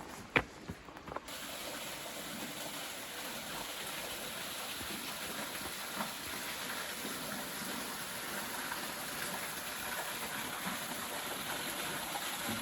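A few footsteps in the first second, then a steady rush of water from a waterfall that cuts in suddenly and holds evenly.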